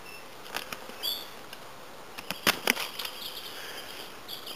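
Gary Mills Patriot bushcraft knife, a Scandi-ground carbon-steel blade, cutting through a thin stick in a chest lever grip: a few light clicks of the edge in the wood, with two sharp cracks about two and a half seconds in as the cut goes through cleanly.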